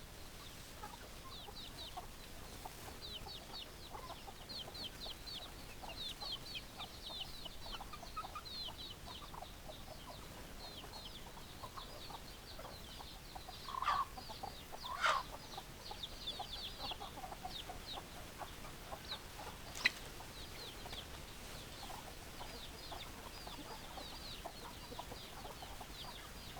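Chickens clucking, with a constant stream of quick, high falling chirps over them. Two louder, short calls come a little past halfway, and a single sharp click comes later.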